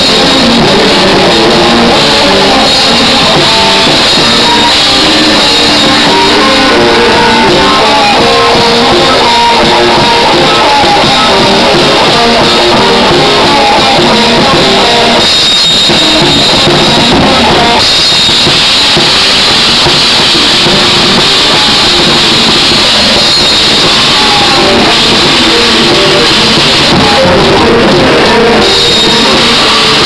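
Metalcore band playing an instrumental song without vocals: electric guitars, bass guitar and drum kit. Very loud, with the recording overloaded.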